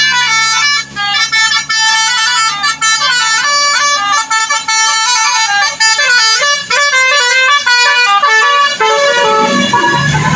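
Bus 'telolet' multi-tone air horn playing a fast tune of rapidly changing notes.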